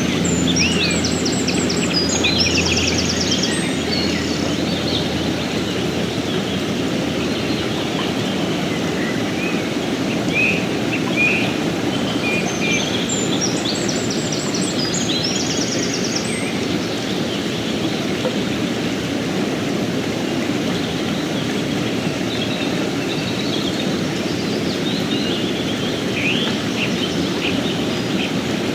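Fast mountain river rushing steadily over rocks. Small birds chirp over it, with quick high trills near the start and again around the middle, and a few calls near the end.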